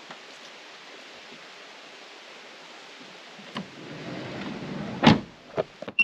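Steady hiss of light rain. About three and a half seconds in, a click and the Hyundai Staria camper van's sliding door rolling along its track, ending in a loud thud about five seconds in, followed by a few small clicks.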